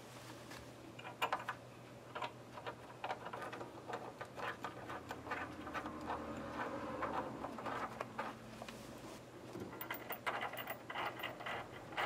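Irregular small clicks, taps and rubbing of metal hardware against wood as nuts are turned by hand onto bolts under a wooden loom frame, with a quicker run of clicks near the end.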